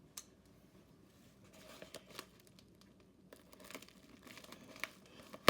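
Faint crinkling and rustling of packaging being handled and torn open, with scattered light clicks that get busier about halfway through.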